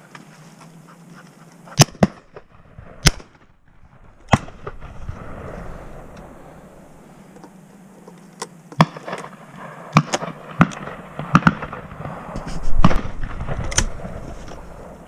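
A series of shotgun shots, about ten sharp bangs at irregular intervals, from guns firing at driven game birds.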